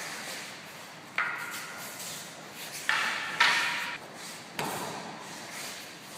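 Wooden practice swords (bokken) clacking together in paired sword drills: four sharp knocks, one about a second in, two close together around three seconds in, and one more past four and a half seconds, each with a brief ringing tail.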